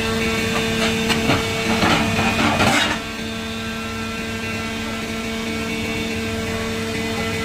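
Y81K-1000 hydraulic metal baler running, its hydraulic power unit giving a steady hum. Over the first three seconds, irregular clanks and knocks come over the hum, loudest just before they stop, and then the hum carries on alone.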